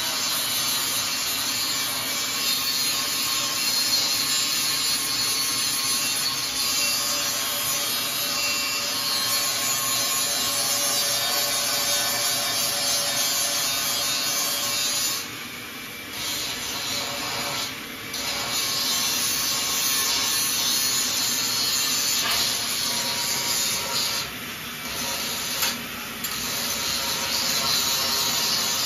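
Angle grinder cutting and grinding the sheet metal of a car's rear wheel well, running steadily with a few short pauses about halfway through and again near the end.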